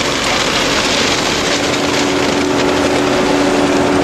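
Vehicle engine running steadily: a constant low hum under a loud, even hiss.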